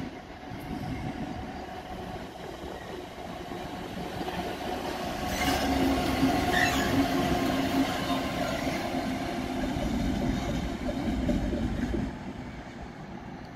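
Class 66 diesel freight locomotive passing close by, its two-stroke V12 engine giving a steady low drone. The sound builds to its loudest as the locomotive goes past and drops off sharply near the end, with a short high squeal about six and a half seconds in.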